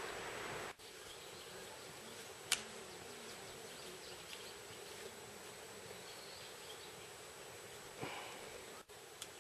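Faint, steady outdoor background hiss, with a sharp click about two and a half seconds in and a softer knock near the end.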